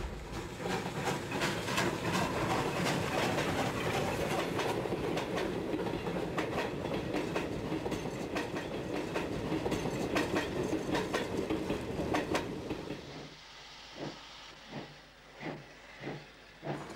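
Steam tram train running on the rails, its wheels clicking over the rail joints. About 13 s in it drops quieter to a slower series of separate beats, a little over one a second.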